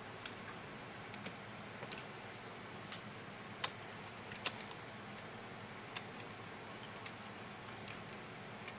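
Light, irregular clicks of a metal transfer tool against the knitting machine's needles and plastic needle bed as stitches are lifted and rehung by hand, roughly one every half second to second, with the loudest click about three and a half seconds in. A steady faint hiss runs underneath.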